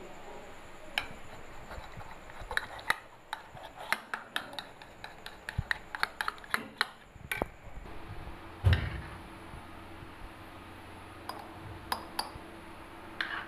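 A kitchen utensil clicking and tapping against a bowl in quick, irregular knocks while cream is stirred, with a single heavier thump about nine seconds in. A few light knocks on a glass bowl follow near the end as the cream is poured in.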